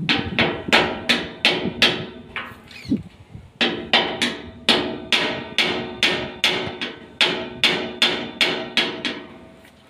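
Hammer blows with a metallic ring, about three a second, while an iron window grille is being fixed to the wall. There is a short pause about two and a half seconds in, and the strikes grow fainter near the end.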